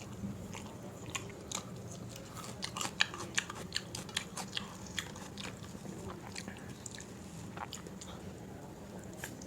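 Close-miked eating: a person chewing and biting food, with many short wet mouth clicks, busiest through the middle of the stretch.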